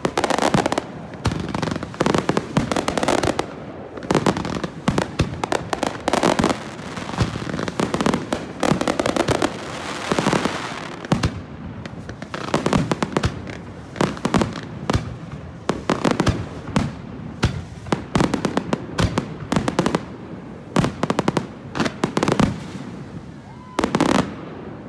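Aerial fireworks display: shells bursting one after another in a dense barrage of booms and crackling, many reports overlapping.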